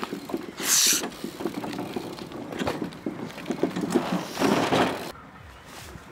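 A loud hissed "shh" about half a second in, over scattered knocks and rustling. A second, lower rushing noise comes near the end, then the sound drops off abruptly.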